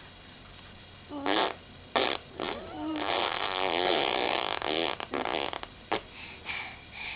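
A six-month-old baby blowing raspberries, buzzing her lips: a few short buzzes starting about a second in, then a longer wavering buzz of two or three seconds, and one more short one near the end.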